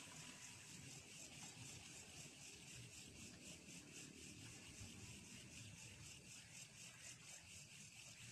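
Near silence: faint night ambience with a high, pulsing chirr of insects, about four pulses a second.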